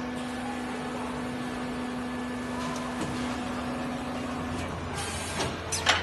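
Parabolic rolling machine for leaf springs running with a steady hum and a held tone. The tone stops a little before the end and gives way to a lower hum. Near the end comes a burst of hiss, then a sharp metallic clank, the loudest sound.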